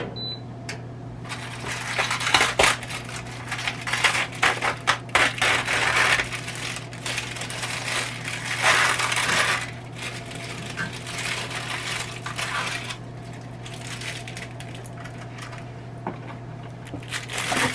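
A short electronic beep from the air fryer oven's control panel, then thin plastic film crinkling and tearing in bursts as it is peeled off a frozen dinner tray, dying down for the last few seconds.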